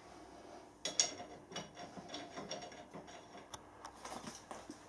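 Light metallic clinks and ticks of steel tools and puller parts being handled. Two sharper, ringing clinks come about a second in, followed by scattered fainter ticks.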